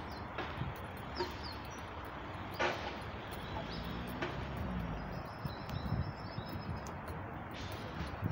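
Outdoor park ambience: a few short bird chirps over a low rumble on the microphone, with soft footsteps on the concrete path and a single sharp click.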